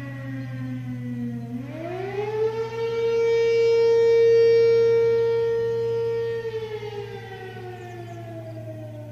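ACA P-15 siren sounding its Attack signal, one full wail: the pitch slides down, rises again about a second and a half in, holds a steady tone for about three and a half seconds, then falls away near the end. Heard from about a quarter mile off, with a steady low hum underneath.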